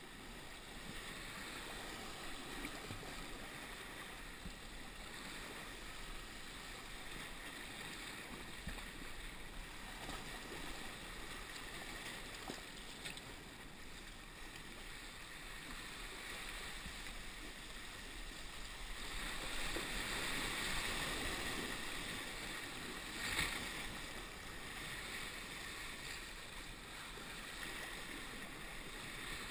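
Sea water sloshing and splashing around a sea kayak as it is paddled close along rocks in a choppy swell. There is a louder rush of water for a few seconds about two-thirds of the way through, ending in one short splash.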